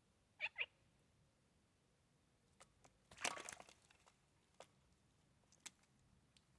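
A Eurasian jay bathing in a shallow pool of water: one short burst of splashing about three seconds in, with scattered drips and taps around it. Two quick falling chirps sound near the start.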